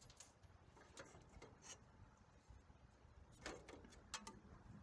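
Near silence, broken by a few faint clicks and light knocks about a second in and a few more near the end.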